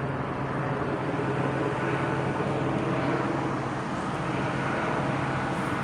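Helicopter overhead, a steady drone of engine and rotor.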